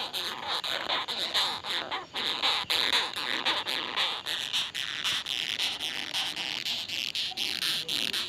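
Batocerini longhorn beetle stridulating: a rapid, irregular run of scratchy squeaks made by rubbing its thorax segments together, the defensive sound these beetles give when disturbed.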